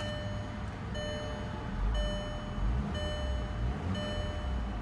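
Volkswagen Passat B5's 1.8-litre 20-valve turbo four-cylinder (AWM) running, revved from idle to a little over 2,000 rpm a couple of seconds in. The seller calls it running perfectly, with no engine faults. An electronic beep repeats about once a second over it.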